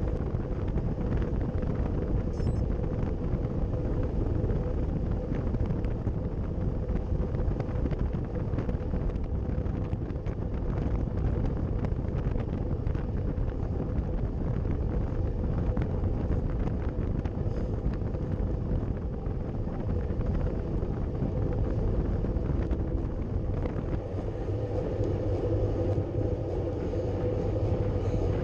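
Steady wind rush buffeting the camera microphone on a road bike riding at about 50 km/h, with road rumble underneath.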